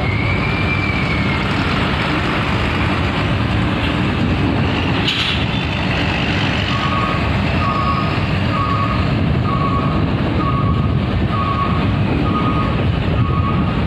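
A large vehicle's reversing alarm beeping about once a second from about halfway through, over a diesel engine running and wind on the microphone.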